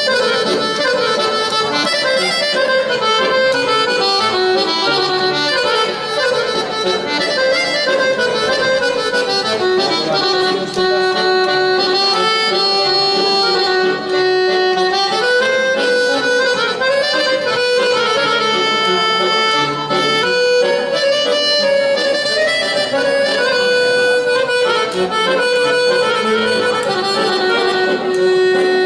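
Piano accordion played solo: a melody moving over held chords and bass notes, at a steady, full level without a break.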